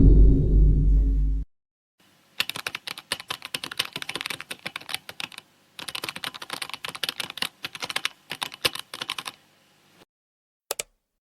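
Fast typing on a computer keyboard: rapid irregular key clicks in two runs of a few seconds each, with a short pause between them, then two single clicks near the end. It opens on the loud low boom of the previous effect dying away and cutting off abruptly.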